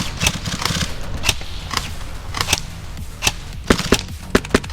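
Airsoft guns firing: scattered single shots and short bursts, as sharp irregular cracks a few times a second.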